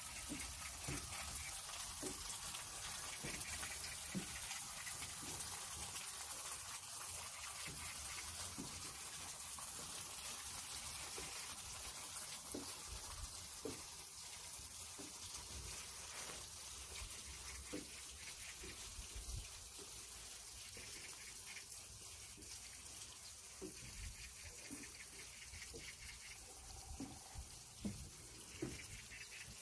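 Mountain stream water running and splashing, a steady rushing sound.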